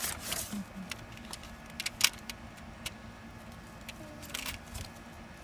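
Paper envelope being torn open and a greeting card handled: scattered rustles and sharp crinkles, the sharpest about two seconds in, over a steady low hum.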